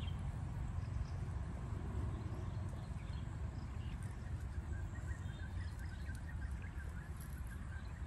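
Outdoor ambience: a steady low rumble with no clear source, and a faint run of quick, high chirps through the second half.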